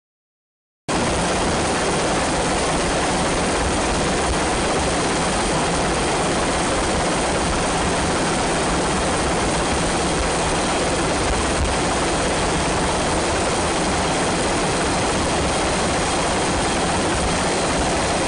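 Steady aircraft noise, as heard aboard the aircraft filming from above. It starts abruptly about a second in and holds at an even level throughout.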